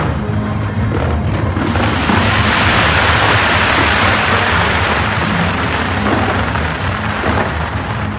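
Big New Year fireworks display: a dense rushing crackle and hiss of cascading fireworks swells about a second and a half in and eases near the end. Music with a steady low bass plays underneath.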